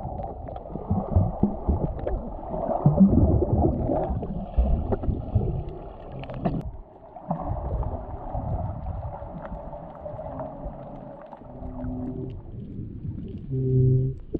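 Muffled underwater sound from a submerged camera: uneven churning and sloshing water from a swimmer's movement, with a few knocks, quieter after about halfway. Two short low hums sound near the end.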